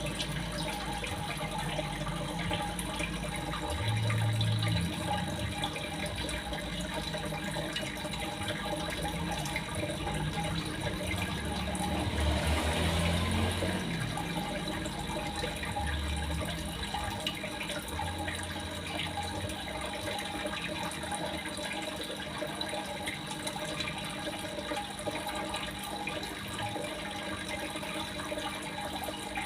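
Water running steadily, with a louder, fuller stretch about twelve seconds in; it is played as a therapy sound to get a silent caged songbird to sing.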